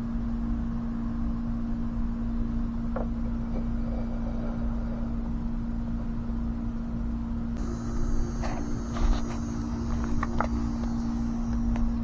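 Steady low mechanical hum with a rumble under it. About two-thirds of the way through, a second higher hum and a thin high hiss join in, along with a few sharp clicks.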